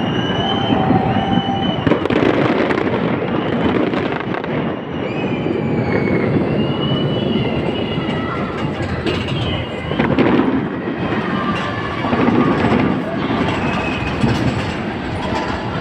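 Fireworks display: a dense, continuous run of crackles and pops with short high whistles through it.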